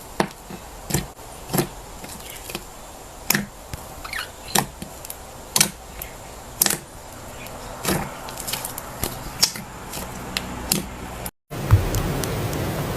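Soft slime being handled, giving irregular sharp clicks and pops about one or two a second. Near the end the sound cuts out briefly and is followed by a steady hiss.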